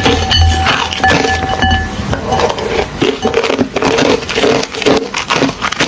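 Close-miked crunching of hollow, refrozen ice being chewed: a rapid, uneven run of sharp cracks and crunches. A faint steady tone sounds through the first two seconds.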